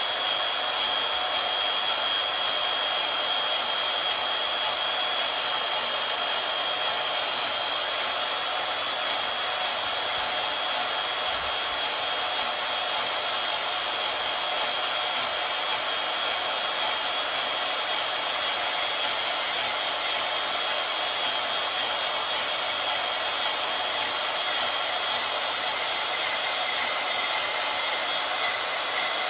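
Portable bandsaw running and slowly cutting through flat metal stock: a steady, unbroken machine hiss with a high whine over it.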